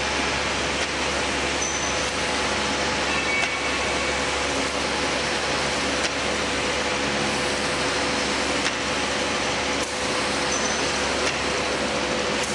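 Octans-126T thermal laminating machine running steadily during a test run: a continuous mechanical noise with a steady hum and a few light clicks.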